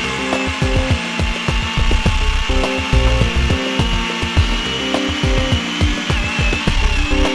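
Greenworks Pro 40-volt battery chainsaw cutting wood, its steady high motor whine dipping briefly under load, with background music carrying a bass beat.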